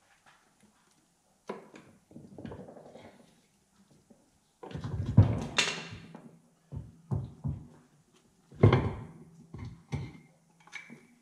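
Metal clunks and scraping as the differential carrier and ring gear are worked loose and shifted inside a 1966 Corvette's differential housing. The loudest clunks come about five and about nine seconds in.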